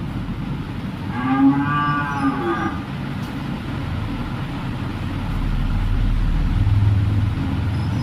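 A cow mooing: one long, drawn-out call lasting about two seconds, starting about a second in.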